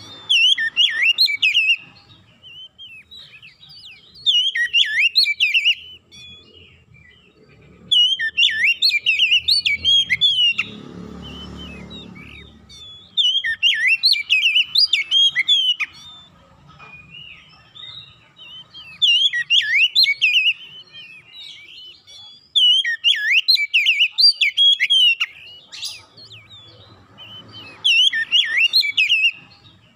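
Oriental magpie-robin (kacer) singing: about seven loud bursts of rapid, varied whistled phrases, each a couple of seconds long, with short pauses between them. A brief low rustle-like noise comes about eleven seconds in.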